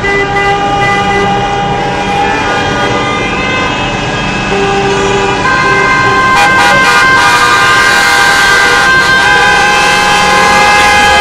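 Many car horns honking at once in long, overlapping held blasts, with more horns joining about halfway through and growing louder: a car convoy honking in protest.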